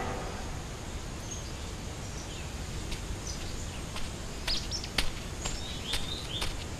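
Countryside ambience: a steady background hiss with scattered short bird chirps and a few sharp clicks, the loudest click about five seconds in.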